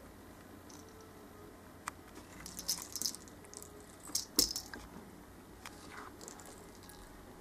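A cat batting small fluffy toy mice around on a hard window sill: scattered light clicks and scuffs as the paws and toys hit the sill. They come in two flurries, with the sharpest knock about four seconds in.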